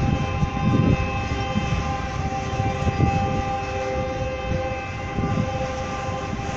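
Freight train's autorack cars rolling past: a continuous low rumble from the wheels with uneven surges, under a steady high whine that holds one pitch throughout.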